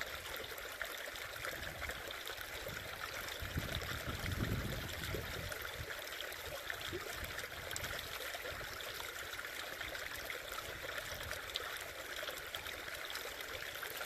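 Steady trickle of running water from a shallow creek and a water filter's hose rinsing out a skinned rattlesnake, with a brief low rumble about four seconds in.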